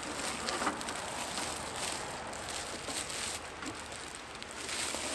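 Plastic wrapping rustling and crinkling as it is handled and pulled, with many small irregular crackles.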